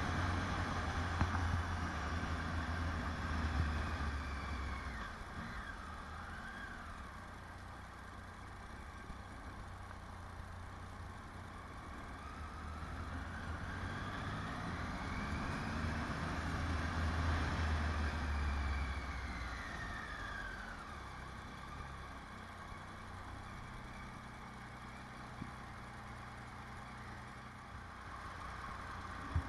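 Motorcycle engine running as the bike is ridden, with road and wind noise. The engine pitch rises and falls through the middle, and a low rumble is loudest in the first few seconds and again about two-thirds of the way through.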